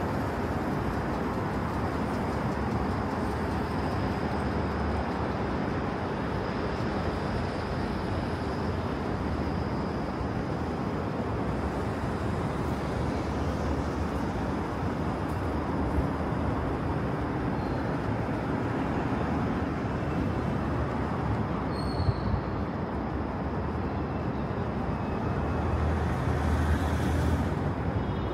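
Steady street traffic noise: a continuous hum of passing cars and buses. About three quarters of the way through there is a brief sharp click.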